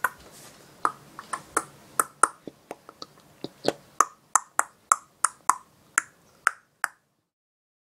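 A run of about twenty short, sharp clicks or snaps at an uneven three to four a second, many with a brief ringing tone.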